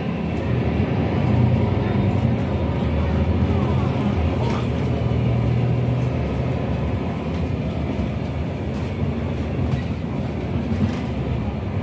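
City bus driving, heard from inside the passenger cabin: a steady low engine and road drone, with scattered light clicks and rattles from the interior.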